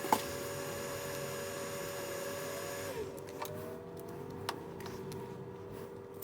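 A small electric tool's motor whines steadily, then about three seconds in its high whine stops and its pitch glides down. A few sharp clicks of tools against the phone's frame come through, the loudest right at the start.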